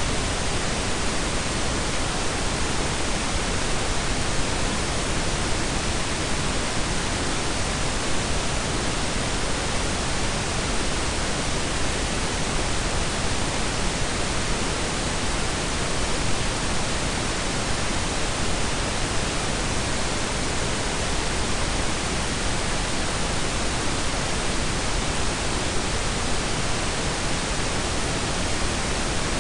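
Synthetic blend of pink and brown noise: a steady, even hiss with a deep low rumble under it, unchanging throughout.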